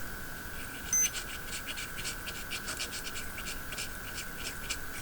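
Brisk scratching strokes of something being scrubbed clean, about four a second. About a second in there is a short high beep, and a steady high whine runs underneath.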